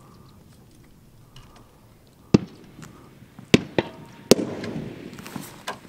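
Rifle shots on a long-range firing line: sharp cracks a little over two seconds in, twice around three and a half seconds, and once more just past four seconds, the last followed by a rolling echo.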